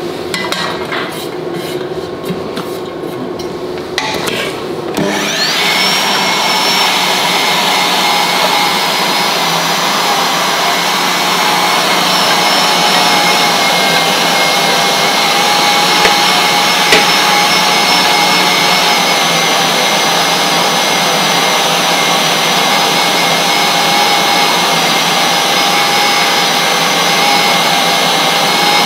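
Kenwood 2 kW electric meat grinder switched on about five seconds in and then running steadily with a constant whine as it minces a white-bean and herb falafel mix. A few clatters of handling come before it starts.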